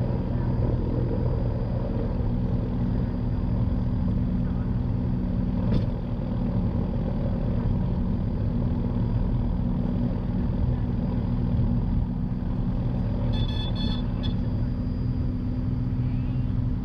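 Piper PA-46 Malibu's piston engine and propeller droning steadily at high power during the takeoff climb, heard from inside the cabin. There is a single click about six seconds in, and a short burst of electronic beeps near the end.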